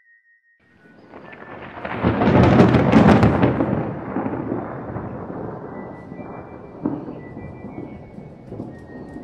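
Thunder: it swells into a loud crack about two seconds in, then rolls on as a long rumble that slowly fades.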